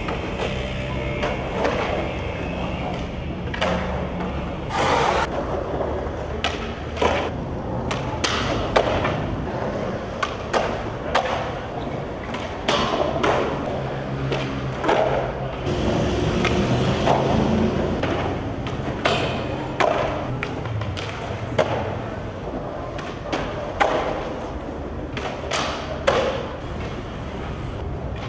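Skateboards rolling on concrete, with many sharp pops and landing slaps from tricks scattered throughout.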